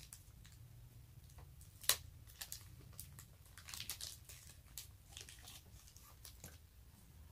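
Thin clear plastic wrapping crinkling and rustling faintly as a camera battery is unwrapped by hand, with scattered small crackles and one sharper crackle about two seconds in.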